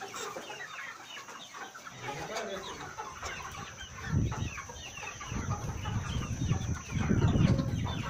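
A flock of Gramapriya chickens clucking, many short calls overlapping. From about four seconds in, bursts of low rumbling noise come in, the loudest of them near the end.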